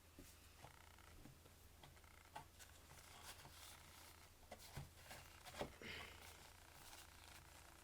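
Near silence, with a few faint, scattered taps and rustles of hands handling paper and cardboard.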